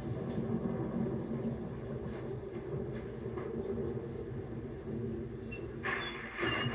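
Crickets chirping steadily, a high pulsed chirp about four times a second, over the hiss and hum of an old film soundtrack. About six seconds in a louder noise comes as a heavy door is opened.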